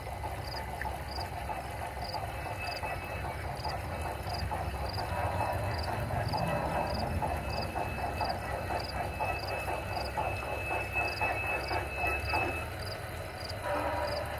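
Large-scale model Shay geared locomotive and its train running on the garden track, the wheels and gearing clattering and growing louder as it comes closer. An insect chirps evenly, about twice a second.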